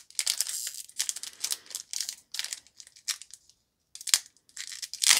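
Foil wrapper of a Pokémon trading card booster pack being torn open and crinkled by hand, in irregular bursts of crackling with a sharp crack about four seconds in.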